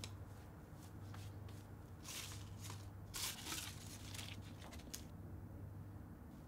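Faint rustling and crinkling of paper chocolate cups and foil wrappers as a heart-shaped chocolate box is handled, in short bursts about two and three seconds in, over a low steady hum.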